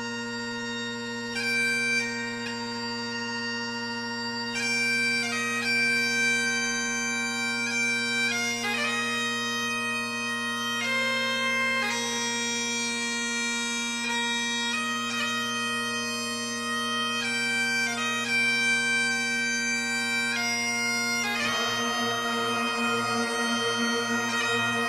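Bagpipe music: a slow melody over steady, unbroken drones.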